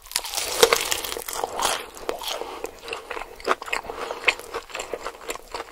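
A person biting and chewing food with a run of irregular sharp crunches.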